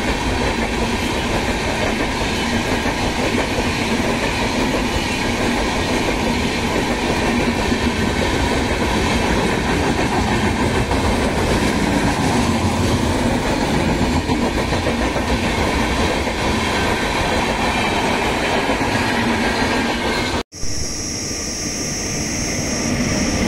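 Passenger train coaches running past at speed: a loud, steady rumble and rattle of wheels on the rails. It cuts off abruptly about 20 seconds in, leaving a quieter background with a faint steady high-pitched whine.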